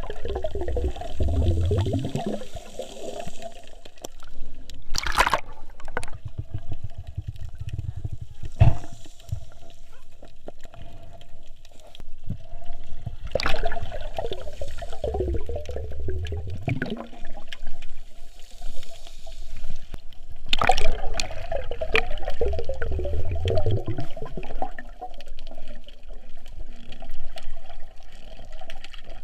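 Water gurgling and sloshing around a snorkeler's camera, in the sea or at its surface. Three gurgling sweeps drop in pitch, and a few sharp knocks are mixed in.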